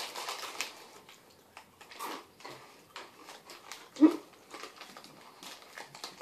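Crinkling of a chip bag at the start, then scattered small mouth and chewing clicks. About four seconds in there is a short, loud throat sound, whimper-like, from someone eating the hot rolled tortilla chips.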